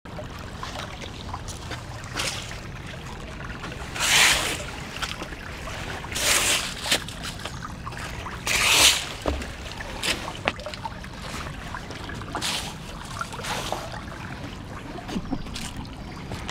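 Small brook trickling over rocks as a steady rush, with several louder rustles of dry leaves every couple of seconds.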